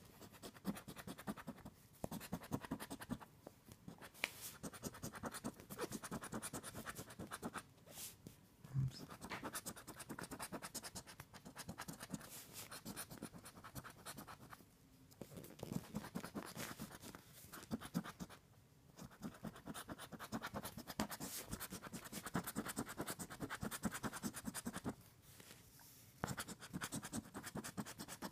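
Rapid scraping strokes rubbing the coating off a scratch-off lottery ticket, in runs of a few seconds broken by short pauses.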